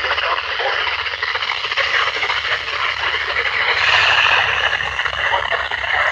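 Steady hiss of FM static from a weather-band radio receiver's speaker, with no station audio coming through.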